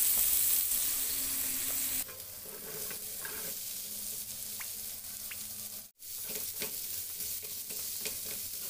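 Sliced onions sizzling in a hot ridged grill pan while a silicone spatula stirs and scrapes them. The sizzle drops lower about two seconds in, potato pieces are tipped in with a few light clatters, and the sound cuts out for a moment just before the end.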